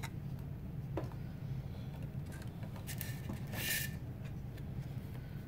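Clear plastic deli cups being handled and set down on a table: a few light clicks and knocks, and one short plastic scrape about three and a half seconds in, over a steady low hum.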